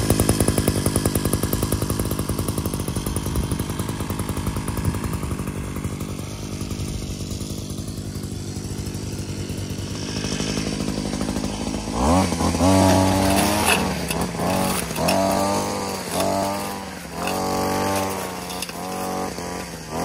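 Wild Badger 52cc two-stroke brush cutter engine running at a steady high speed. From about halfway through, its pitch rises and falls about once a second as the throttle is blipped while the blade cuts through grass and brush.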